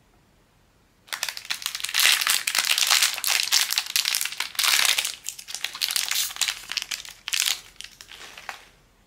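Blind-bag packaging being handled and crinkled, a dense crackle that starts about a second in, comes in several surges and stops just before the end.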